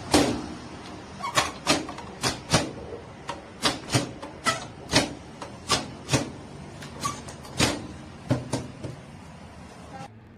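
Repeated sharp clicks and knocks from handling a microwave oven, about two a second, over a steady low hum.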